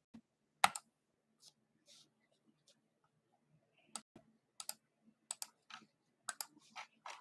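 Sharp, irregular clicks, about a dozen, like keys on a computer keyboard being pressed, coming more often in the second half.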